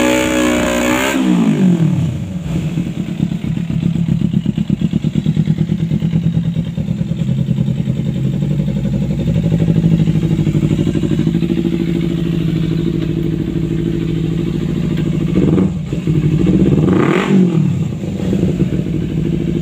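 Kawasaki Ninja 250 FI parallel-twin engine through an aftermarket LeoVince exhaust, held high in the revs at the start and then dropping back to a steady, pulsing idle. Near the end it is blipped once, rising and falling quickly, before settling back to idle.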